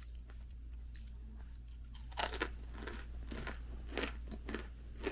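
Close-up crunchy bite into a deep-fried shrimp and vegetable fritter (ukoy) about two seconds in, followed by chewing crunches about twice a second.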